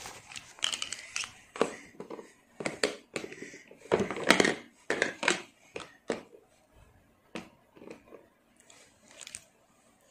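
Hands handling small plastic toy-kitchen pieces: irregular clatters, knocks and rustles as toy plastic plates are slotted into a plastic toy kitchen unit, busiest a little before the middle.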